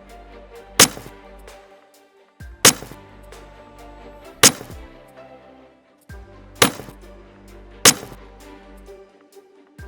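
Nutshells cracking: five sharp, loud cracks spaced about one to two seconds apart, over soft background music.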